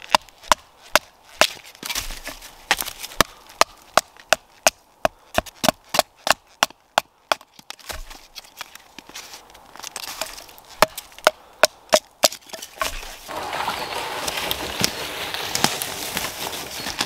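Sharp wooden knocks, about two a second, as a knife is batoned down through a pine stick on a stump to split it into kindling. From about thirteen seconds in they give way to a continuous crackling rustle as a dead pine trunk is dragged through dry twigs and brash.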